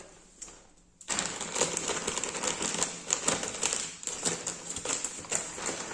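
Plastic courier mailer bag crinkling and rustling as it is handled and cut open with scissors, starting about a second in.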